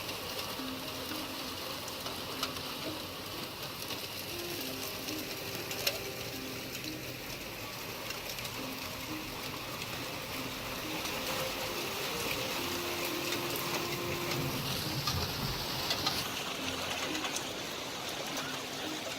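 Steady rain hissing, with a dove cooing over and over in short, low, steady notes. The rain noise swells briefly about fifteen seconds in.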